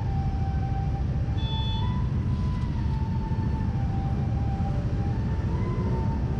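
Wind rushing over the helmet microphone and the Yamaha NMAX 155 scooter's single-cylinder engine running as it rides, a steady rumble. A thin high tone slowly rises and falls over it.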